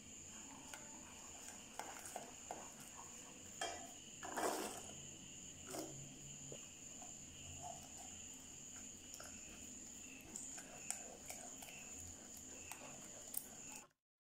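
Silicone spatula stirring cream and chocolate in a small saucepan: faint scrapes and light knocks against the pan, the loudest a brief rustle about four and a half seconds in, over a steady high-pitched whine. The sound cuts off suddenly near the end.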